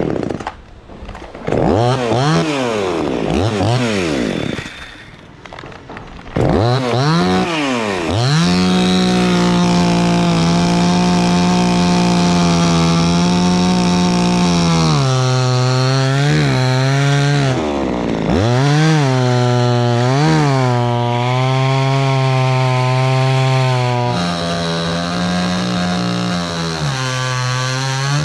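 Chainsaw revved in a few short blips, then held at high speed for long stretches as it cuts teak wood, its pitch dropping back briefly a few times.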